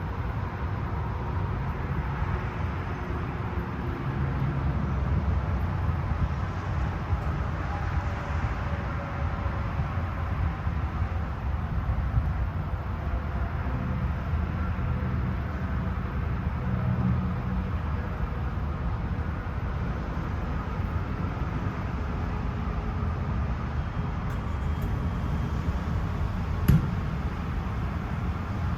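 Cabover truck's Cummins diesel engine running with a steady low rumble as the truck works under load. A single sharp click comes near the end.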